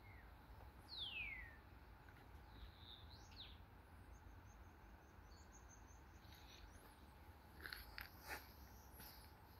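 Faint bird calls: a falling whistle about a second in, a short call near three seconds, and a thin high run of notes around the middle, over a low steady background rumble.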